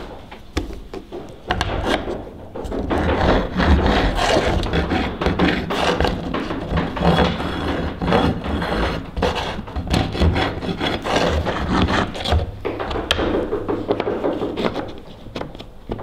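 An ink stick is worked by hand against a file, with repeated irregular scraping and rubbing strokes that smooth its edges. The strokes start about a second and a half in and die down near the end.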